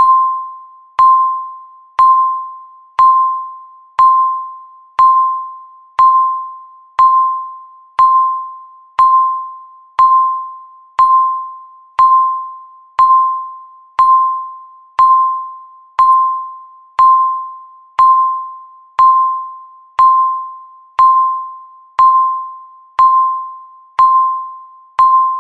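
Countdown timer's electronic beep sounding once every second: a short single-pitched ping, struck sharply and fading away before the next, repeating evenly.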